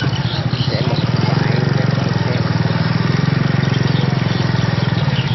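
Motor scooter engine running steadily at low speed, a close, even drone heard from the rider's seat, with voices of a market crowd faintly behind it.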